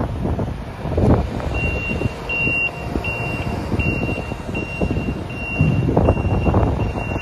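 A vehicle's reversing alarm beeping in short, even, high-pitched beeps about one and a half times a second, starting about a second and a half in, over a low rumbling noise.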